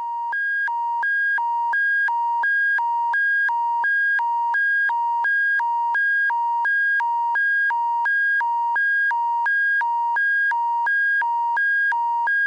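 Synthesized two-tone emergency alert signal, a buzzy electronic tone switching back and forth between a low and a high pitch about once a second. It swells in over the first couple of seconds, then holds steady. It is the attention signal that announces an emergency warning broadcast.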